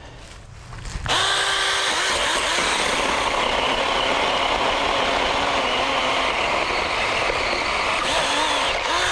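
Small 6-inch chainsaw starting about a second in and cutting wood from a downed tree, a steady motor whine that dips and wavers in pitch as the chain works through the cut.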